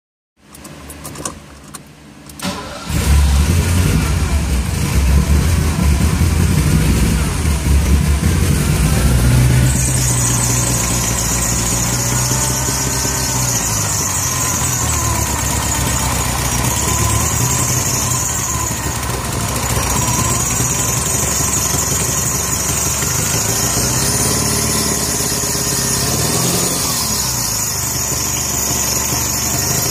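1980 Ferrari 308 GTSi's 2.9-litre V8 cranked by the starter for about two seconds, catching and running fast at first, then easing to a steady idle about ten seconds in, its timing belts freshly replaced. A high whine comes in as it settles.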